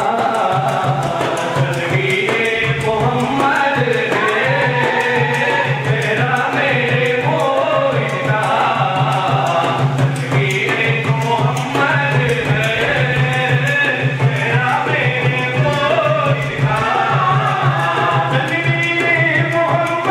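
Manqabat, a devotional Sufi song in qawwali style: a melody line over a steady tabla rhythm, playing continuously.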